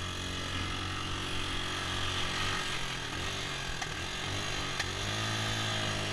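Small dirt bike engine running while riding, its pitch rising and falling with the throttle a few times, over a steady rush of wind and road noise.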